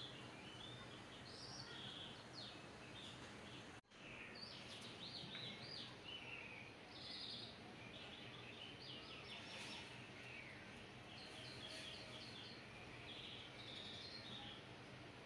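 Faint birdsong: birds chirping and trilling in short repeated phrases over a steady hiss, with a brief dropout about four seconds in.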